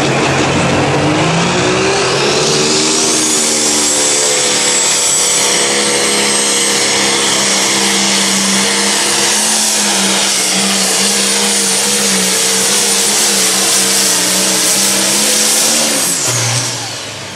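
Pro Stock pulling tractor's turbocharged diesel engine at full throttle through a pull. The engine climbs over the first couple of seconds with a high turbo whistle rising alongside. It then holds a steady, high-revving note until it drops off about sixteen seconds in, as the pull ends and the throttle comes off.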